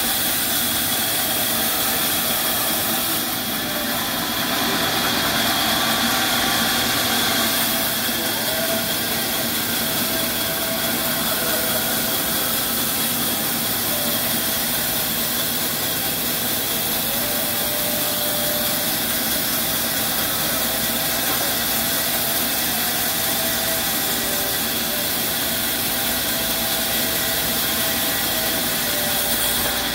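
Sawmill band saw running and ripping a thick wooden plank lengthwise into boards: a steady, even machine noise with a strong high hiss.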